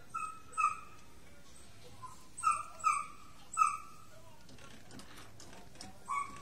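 Short, high-pitched yelping calls from an animal: about six brief yelps in small groups, the loudest run in the middle.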